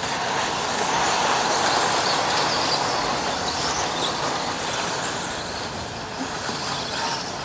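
A pack of 1/10-scale two-wheel-drive radio-controlled off-road buggies racing: a steady whirring hiss of motors and tyres, with faint high motor whines coming and going as the cars pass.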